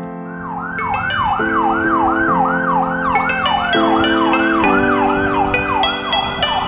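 Ambulance siren in yelp mode, a quick rising-and-falling wail that repeats nearly three times a second, over background music with held chords.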